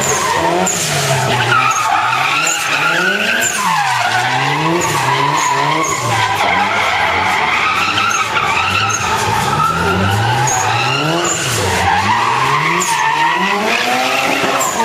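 Toyota Corolla AE86 drifting. The engine revs rise and fall over and over as the throttle is worked, over a continuous, wavering tyre squeal.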